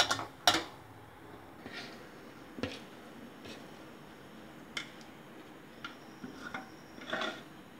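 A metal ladle scraping and knocking against an aluminium pot while a sticky, sugar-coated snack mix is tipped out into a steel bowl: scattered clicks and taps, the sharpest about half a second in.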